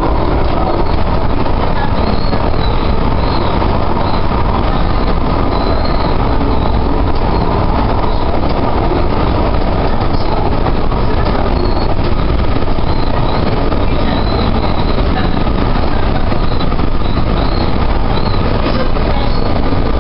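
Light-rail train heard from inside the car while under way: a steady rumble and rush of wheels on the track.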